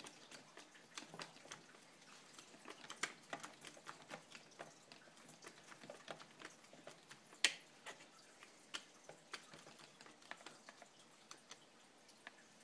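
Faint, irregular clicks and taps of hand tools, screws and small RC car transmission parts being handled, with one sharper click about seven and a half seconds in.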